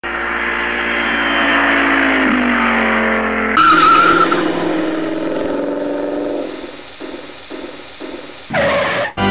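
Car sound effects: an engine note falling in pitch, then a brief tyre squeal about three and a half seconds in, the engine settling lower and fading. Near the end a quick rising sweep cuts off suddenly.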